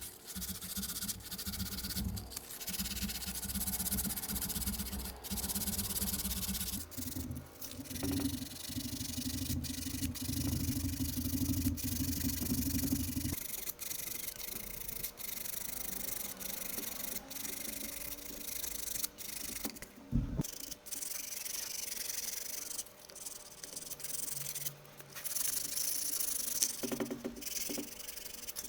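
Abrasive rubbing and sanding on a part, continuous with brief pauses. A low motor-like hum runs underneath and stops about halfway through.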